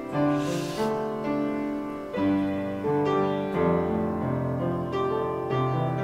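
Slow piano music of held chords changing every second or so, with a brief hiss about half a second in.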